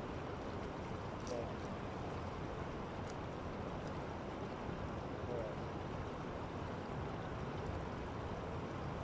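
Steady rush of a river running over rocks. Two short faint calls rise above it, about a second and a half in and again past the middle.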